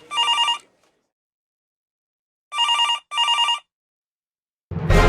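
Telephone ringing in a double-ring cadence: the end of one ring-ring, a silent pause, then another ring-ring about two and a half seconds in. Loud music starts near the end.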